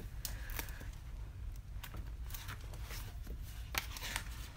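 Paper pages of a paperback guidebook being turned and flipped by hand: soft rustles with several light clicks scattered through.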